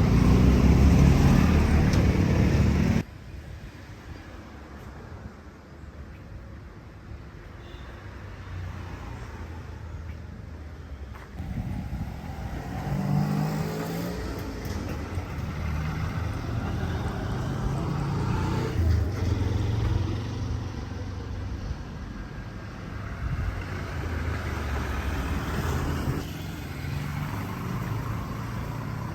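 Street traffic: motor vehicles passing. The sound is loud for the first three seconds, then drops abruptly to quieter traffic noise, and an engine revs up again a little before halfway.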